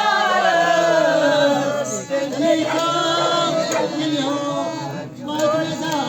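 Singing: a song sung with long, held notes that waver and slide in pitch.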